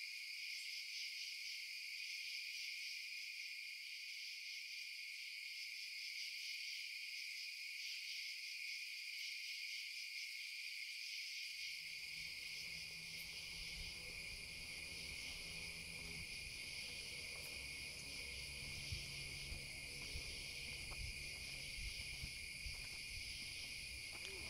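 Steady chorus of night insects, crickets, chirring in several high-pitched bands. About halfway in, a faint low rumble with a few soft taps joins underneath.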